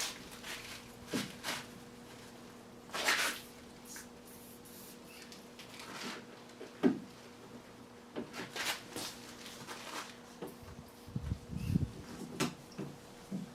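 Hand-work noises on a trailer door hinge: scattered clicks, light knocks and rustling as parts are handled, with a short hiss about three seconds in and a few dull thuds near the end.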